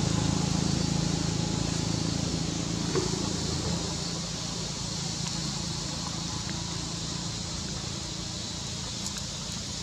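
A motor vehicle's engine hum, low and steady, fading slowly as it moves away, over a steady background hiss.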